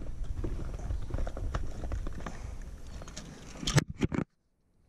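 Wind rumbling on the microphone, with scattered light clicks and knocks of handling in a kayak. Near the end comes a quick burst of louder clicks, then the sound cuts out completely.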